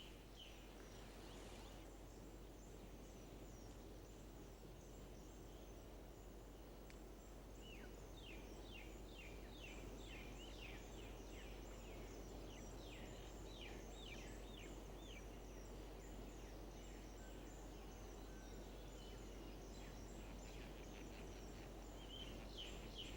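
Faint bird calls: a quick run of descending chirps starts about eight seconds in and lasts several seconds, with another short run near the end and fainter high twittering throughout, over a low steady hum.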